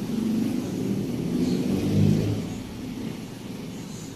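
A motor vehicle's engine rising in level to a peak about two seconds in and then fading, like a vehicle passing by.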